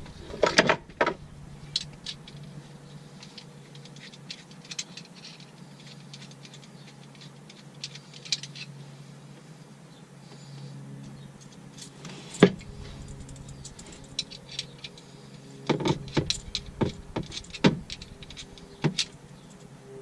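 Scattered clicks, rattles and knocks of tools and parts being handled during fuel-pump installation work, with a few louder knocks about midway and again near the end, over a faint steady hum.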